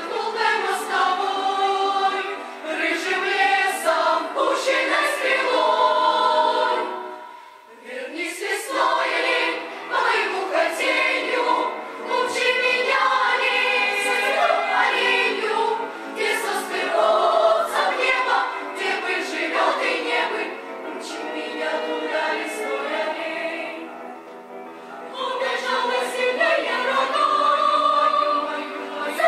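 Girls' choir singing a lyrical song in Russian, the phrases breaking off briefly about seven seconds in and again near twenty-four seconds.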